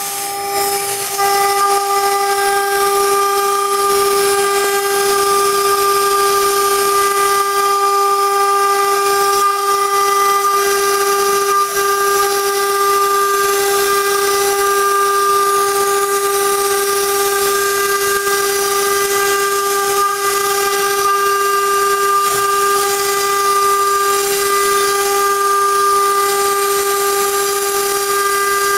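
CNC router spindle running at a steady high-pitched whine while its small engraving bit cuts a fretwork pattern through an MDF board, with a hiss of cutting under the whine.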